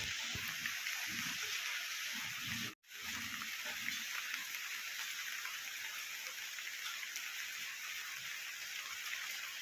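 Steady rain falling, an even hiss, broken by a brief dropout about three seconds in.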